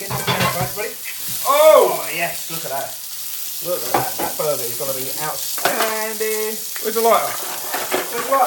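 Beef burger patty sizzling in a griddle pan on a gas hob, with a spatula pressing and scraping under it. Men's voices talk over the frying, and one holds a long note about six seconds in.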